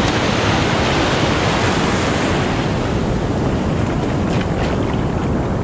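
Surf breaking and washing on the beach, a steady loud rush with wind buffeting the microphone; the hiss eases a little about halfway through.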